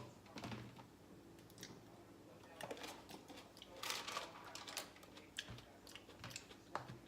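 Faint light clicks and rustles of hands placing food into snack containers, with a louder rustle about four seconds in.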